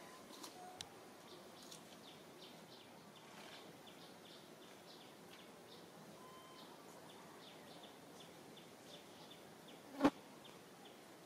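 Faint insect sounds, short high chirps repeating irregularly, with a single sharp knock about ten seconds in.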